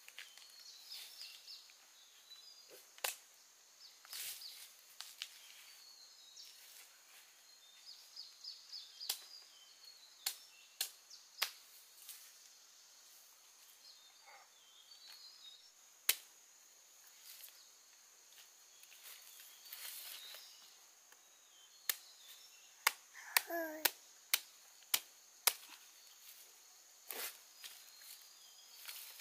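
Rural outdoor ambience: birds chirping in short trills over a steady, high, thin insect drone. Scattered sharp clicks and snaps come irregularly throughout, and one louder wavering call sounds a little past two-thirds in.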